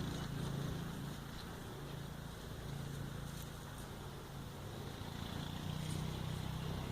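Steady low hum of a running motor or engine.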